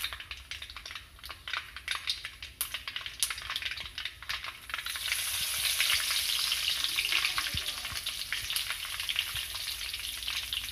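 Mustard seeds popping in hot coconut oil, many small sharp crackles. About five seconds in, the sizzle jumps much louder as fresh curry leaves go into the hot oil.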